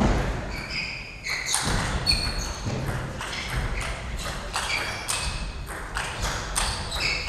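Table tennis rally: the ball clicking off the bats and the table in quick alternation, a few sharp ringing pings a second.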